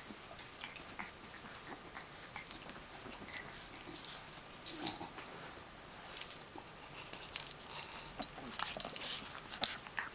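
Bulldog and pug puppies playing: scattered small clicks and scuffles, busier near the end, over a faint steady high-pitched whine.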